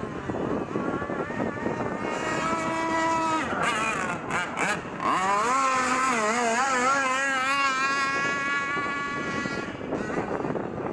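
Gas-powered RC boat's small two-stroke engine running at speed. Its pitch holds high, drops a few seconds in, then climbs again and wavers up and down before fading near the end.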